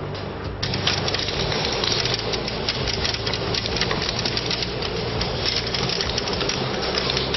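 Torrential wind-driven rain pelting a window, a dense crackling patter of drops that suddenly gets much heavier about half a second in.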